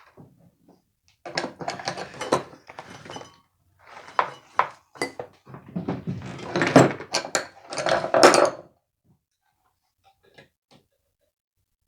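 Metal tools and chainsaw parts clinking and clattering as they are handled at a workbench, in several busy runs of sharp clicks that stop about nine seconds in.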